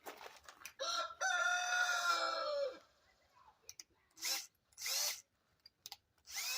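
A rooster crows once, one long call lasting about two seconds. A few seconds later come three short separate bursts of sound.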